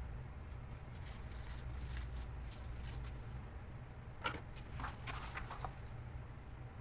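A few light clicks and scrapes of small laptop parts being handled during disassembly, bunched about four to six seconds in, over a low steady hum.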